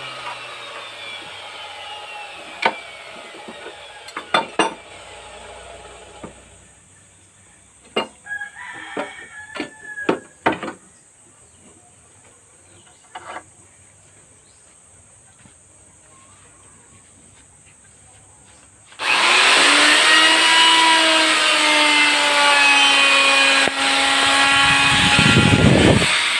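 Handheld electric wood router winding down with a falling whine over the first few seconds, with a few sharp clicks and wooden knocks. Then it is switched on again about three quarters of the way through and runs loud and steady at full speed with a high whine.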